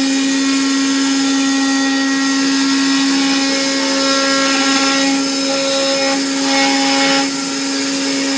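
Mixer grinder motor running steadily with the repaired jar fitted, a constant whine with no rattle, as the jar's newly replaced bush is test-run.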